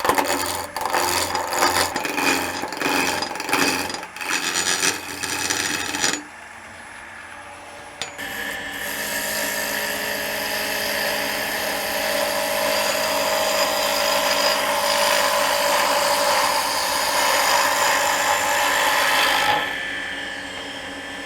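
Wood lathe roughing a square cherry blank round, a turning tool cutting into the spinning wood. For the first six seconds the cut is choppy and interrupted as the blank's corners strike the tool. After a short lull with only the lathe's motor hum, a steadier continuous cut runs from about eight seconds until near the end.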